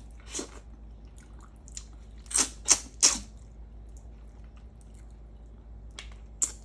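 Close mouth sounds of eating a cooked pompano's head: wet smacks, sucking and chewing, with three louder smacks close together about two and a half to three seconds in and a couple more near the end.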